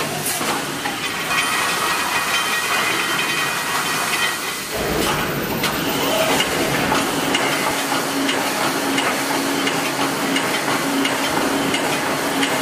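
Automatic wire mesh welding machine running: a steady hiss over a low steady hum, with a single knock about four and a half seconds in.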